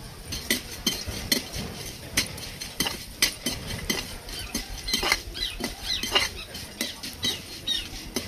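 Metal spatula scraping and clinking against an aluminium kadhai as dry Maggi noodles are stirred and toasted in a little oil, in quick irregular strokes about two to three a second.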